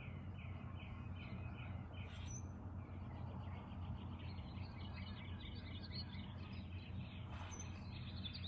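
Small birds chirping in quick runs of short repeated notes, over a steady low background rumble.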